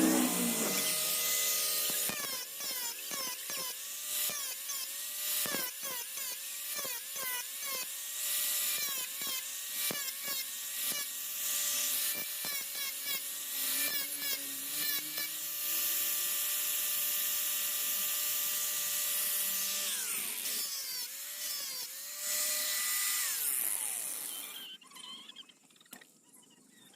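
Small electric motor of a power tool running at a high whine, its pitch dipping again and again as it is loaded, with a hissing grind over it. It is switched off about 23 seconds in and winds down with a falling whine.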